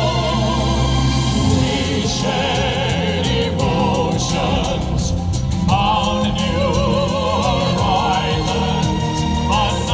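Operatic-style vocal quartet of two women and two men singing over instrumental accompaniment, holding long notes with wide vibrato.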